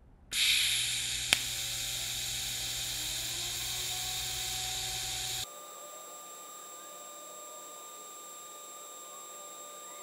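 TIG welding arc on stainless steel at about 118 amps: a steady hiss and buzz that starts suddenly, with a sharp click about a second in. About halfway through it cuts abruptly to a quieter steady hiss with a thin high whine.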